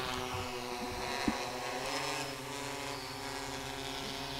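Small remote-controlled quadcopter in flight, its electric motors and propellers making a steady hum whose pitch shifts a little about two seconds in. A single sharp click about a second in.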